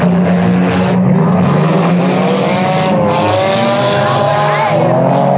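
Several derby cars' engines running together, their pitches rising and falling as drivers rev and lift off, with a steady low drone from idling engines beneath.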